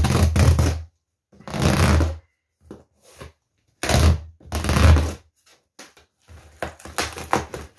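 Packing tape being ripped and peeled off a cardboard box by hand, in three long tearing pulls, followed by scattered short scratches and crinkles of tape and cardboard.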